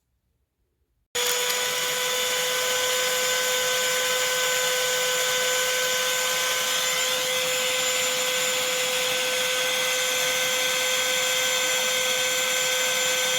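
A Black+Decker Pivot Vac cordless handheld vacuum running at a steady high whine, starting abruptly about a second in after near silence.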